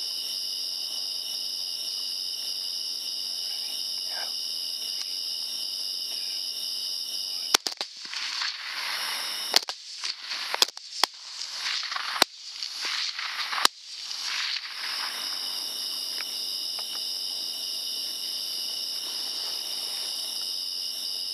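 Steady high-pitched chorus of night insects trilling, broken about a third of the way in by a string of about six sharp rifle shots over some six seconds, with a rushing noise between them; the insects come back after the last shot.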